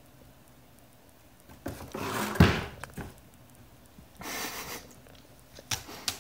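A small cardboard phone box is knocked off a table by a toucan and lands on the floor with a thud about two and a half seconds in. Then comes a short rustling scrape and a couple of light clicks.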